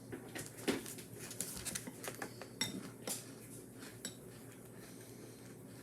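Light clinking and tapping of small painting supplies being handled, such as brush and paint containers knocking together: a scatter of short clicks, busiest in the first few seconds.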